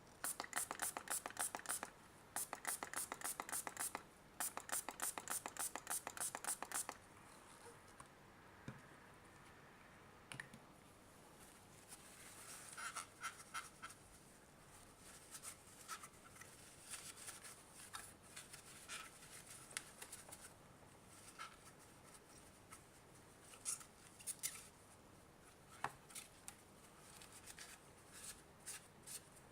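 Rapid back-and-forth scrubbing in three spells of a second or two each, as the inside of an old digital multimeter is cleaned, followed by scattered light scratches and sharp clicks from handling small parts.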